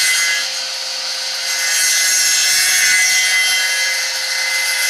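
A homemade copy-carving machine cuts a wooden propeller blank: its saw blade, stepped up to about 5,000 rpm by a 1.1 kW three-phase electric motor, rasps through the wood with a steady, high-pitched noise. The noise eases briefly about a second in.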